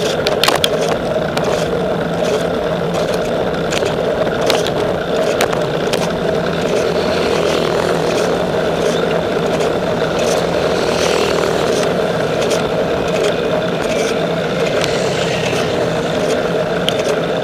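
Steady rushing wind and road noise from a camera on a moving bicycle, with short rattling clicks now and then.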